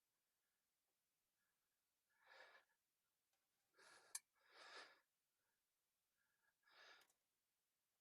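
Near silence, broken by four faint breaths, each under half a second, and one tiny sharp click a little after the middle.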